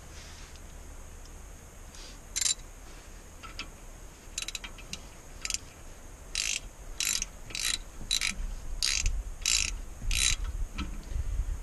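Hand ratchet clicking as it snugs down the Allen retaining bolt on a disc brake caliper. It starts with a few spaced strokes, then from about halfway settles into a steady run of strokes, a little under two a second.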